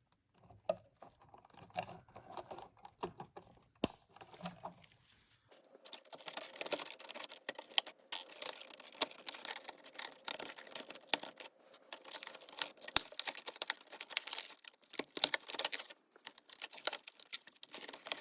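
Stiff electrical wires and Wago lever connectors being handled and worked into a switch box: a run of small clicks, scrapes and rustles, with one sharp click about four seconds in, growing busier after about five seconds.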